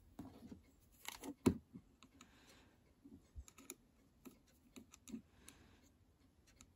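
Faint, scattered clicks and taps as a multimeter probe tip touches the solder pads of a small circuit board held in the fingers, with light handling rustle. The sharpest click comes about one and a half seconds in.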